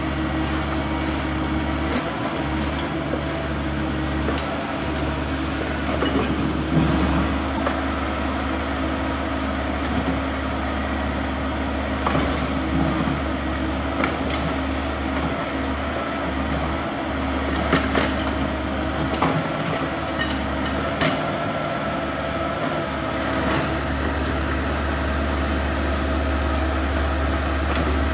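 Caterpillar 305.5E2 mini excavator working: its diesel engine runs with a steady low hum under digging load while the bucket cuts into a dirt bank, with occasional sharp knocks and clanks from the bucket and arm.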